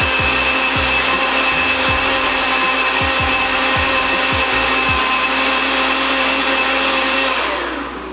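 Electric kitchen blender running steadily, then winding down with a falling pitch near the end.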